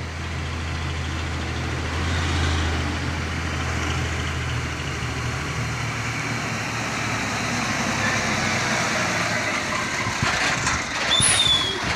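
Diesel engine of a loaded container truck pulling up a hill as it approaches and passes close by. It is a low steady drone that grows gradually louder as the truck nears, with a short high squeal near the end.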